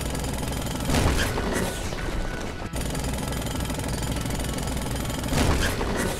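Continuous loud mechanical rattling, a smashing sound effect for a toy bulldozer breaking up a jigsaw puzzle, with two louder surges, about a second in and near the end.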